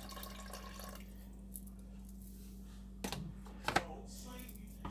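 Pasta water going into a pot of spaghetti in sauce: faint dripping, then a few sharp knocks of a utensil against the pot about three seconds in, over a steady low hum.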